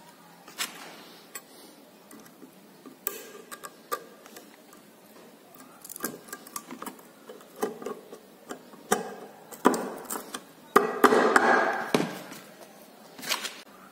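Scattered light clicks and taps of small metal parts being handled, as a retaining ring is fitted onto a suspension ball joint's rubber dust boot, with a denser scraping, rustling stretch about eleven seconds in.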